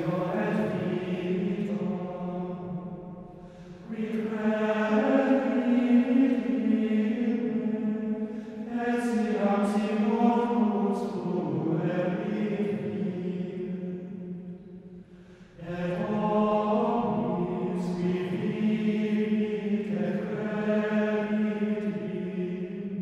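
Unaccompanied monastic chant sung by voices in long, slow phrases, with short breaks about four seconds in and again about fifteen seconds in.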